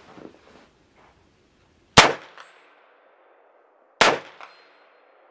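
Two shots from a .223/5.56 AR-15-type rifle, about two seconds apart, each ringing off briefly. A fainter clang follows each shot a fraction of a second later: the bullet striking a steel target downrange.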